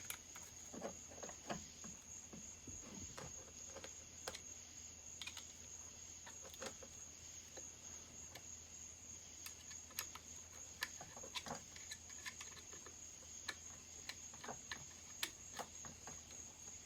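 Faint, scattered clicks and taps of hand tools and small parts being handled during a chainsaw teardown on a workbench. A steady high-pitched tone and a low hum continue underneath.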